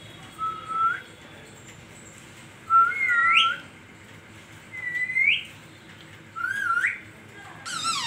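Indian ringneck parakeet giving four rising whistled calls, each under a second long and a second or two apart, then a louder, harsher squawk right at the end.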